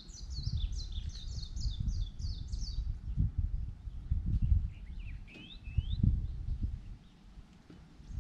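Small songbird singing a rapid run of repeated high, falling notes for about three seconds, then a few short rising chirps a little later. Gusts of wind rumble on the microphone throughout and are the loudest sound.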